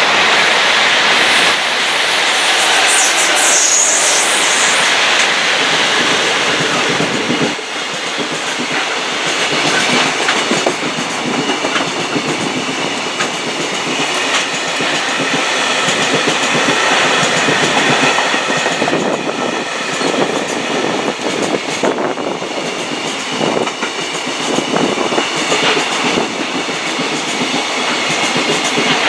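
A freight train hauled by an EF66 electric locomotive running through a station at speed, a loud steady rumble of wagons with the wheels clicking over the rail joints.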